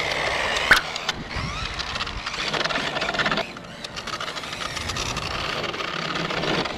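A 1/10 brushless four-wheel-drive RC touring car driving on concrete: the whir of its electric motor and geared drivetrain mixed with tyre noise. It eases off about three and a half seconds in, then builds again.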